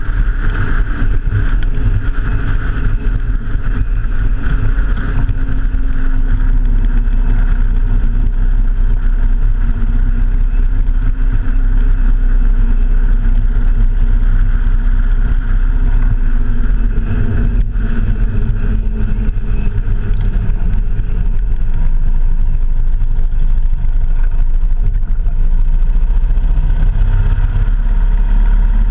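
Motorcycle engine running steadily on a ride, under heavy wind rush on the bike-mounted camera's microphone. The engine note drifts a little as the speed changes.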